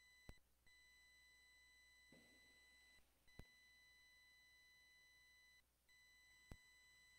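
Near silence, holding a faint steady high-pitched electronic tone that cuts out briefly a few times, with three sharp clicks about three seconds apart.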